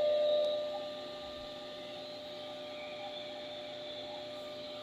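Table saw running with no load, a steady whine of several fixed tones; it is louder for the first moment, then settles.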